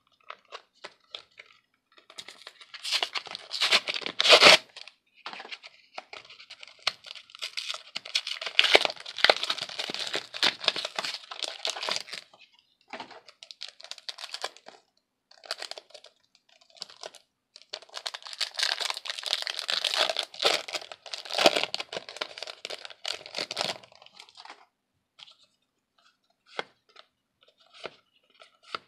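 Foil-lined wrapper of a Yu-Gi-Oh booster pack being torn open and crinkled in the hands, in three long crackling stretches. Near the end there are a few faint clicks as the cards are handled.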